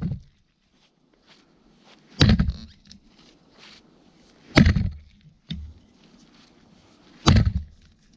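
Welland Vale True Temper fire axe chopping into a frozen spruce log: heavy chops land about every two and a half seconds, with a lighter knock between the third and fourth.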